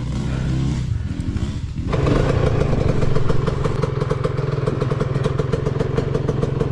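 Dirt bike engine running at low revs, then, after a cut about two seconds in, a dirt bike idling steadily and louder, with a rapid, even putter.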